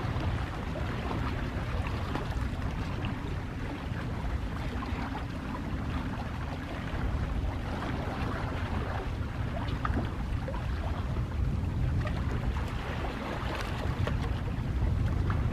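Calm sea waves washing in, a steady wash of noise with a low rumble that swells slightly in places.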